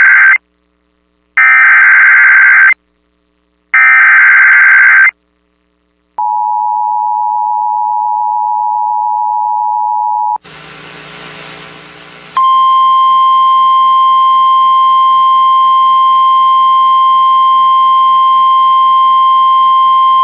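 Emergency Alert System tones: three loud bursts of SAME header data, then the two-tone EAS attention signal for about four seconds. After a couple of seconds of quieter static comes a steady single-pitch NOAA Weather Radio warning tone for about nine seconds, which cuts off near the end.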